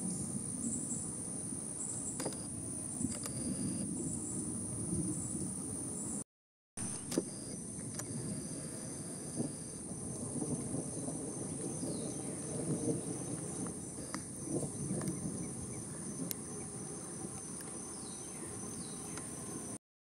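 Insects droning steadily at a high pitch, with a repeating pulsed insect call underneath, over a low outdoor rumble. The sound cuts out for about half a second a little past six seconds.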